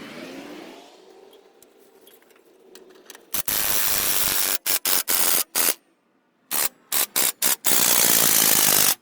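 Impact wrench run in a series of short trigger bursts and then one longer burst, tightening the harmonic balancer bolt on an LS engine.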